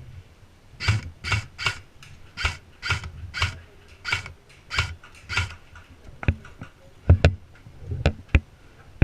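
Footsteps crunching through dry undergrowth at a walking pace, about two steps a second, followed by a few sharp cracks.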